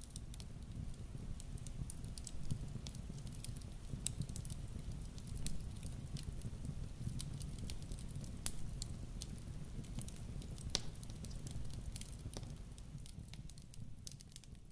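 Wood fire crackling: scattered sharp pops and snaps over a low, steady rumble.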